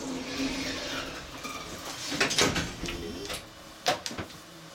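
Hakone Tozan funicular car running up the incline, heard inside the car: a steady rumble with a faint falling whine in the first second, then a cluster of sharp clicks and rattles a little past the middle and another single knock near the end.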